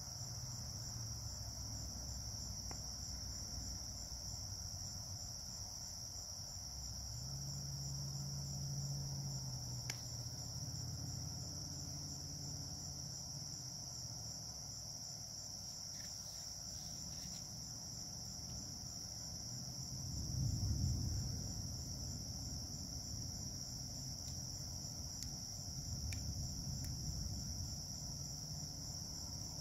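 Low rolls of distant thunder, the strongest about two-thirds of the way in, under a steady high chorus of night insects chirping in an even pulse.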